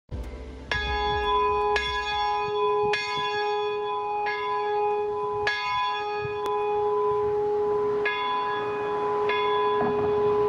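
A single church bell struck about seven times, roughly once a second with a longer pause in the middle, its tone ringing on between strokes.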